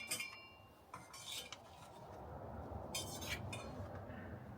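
An eating utensil clinking against a dish with a short ring, then scraping on it twice while food is scooped up.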